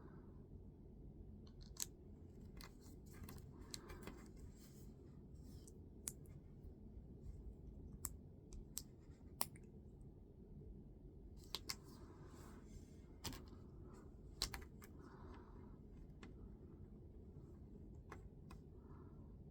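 Faint, irregular clicks and light rustling of small plastic building pieces being handled and pressed together, over a low steady hum.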